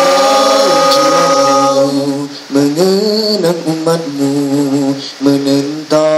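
Male nasyid vocal group singing unaccompanied in close harmony. A held chord fades out about two seconds in, then short, rhythmic backing-vocal syllables come in over a low sung bass line.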